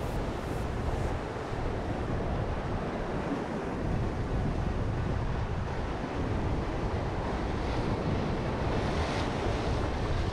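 Sea surf breaking and washing over shore rocks, a steady rushing, with wind buffeting the microphone.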